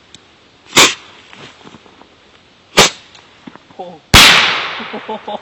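Three loud, sharp bangs about two seconds apart, the last followed by a long fading tail.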